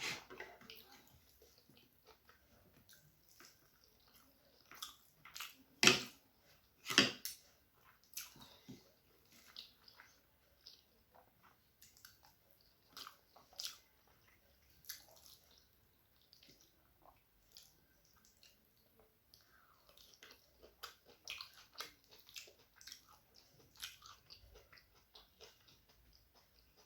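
A person chewing and eating rice with fried red amaranth greens: scattered small wet mouth clicks and smacks. Two louder knocks come about six and seven seconds in.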